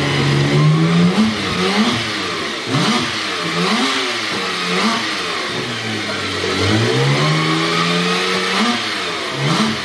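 Porsche 911 Turbo S turbocharged flat-six engine being revved in a series of short throttle blips, its pitch rising and falling about once a second. A longer, held rev comes a little past the middle.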